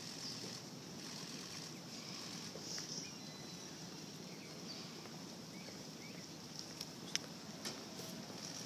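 Quiet outdoor ambience: a steady hiss with a few faint chirps, and several sharp clicks in the last couple of seconds.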